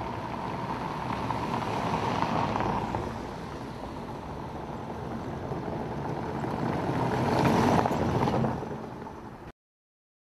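SEAT Leon hatchbacks driving past on cobblestone paving, a steady rush of tyre and engine noise. The noise swells about two seconds in and louder again near eight seconds as a car passes close, then cuts off abruptly about nine and a half seconds in.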